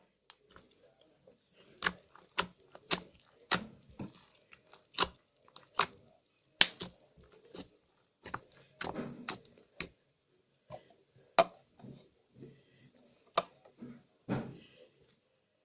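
Slime being squeezed and poked by hand, giving a string of irregular sharp pops and clicks as air pockets burst.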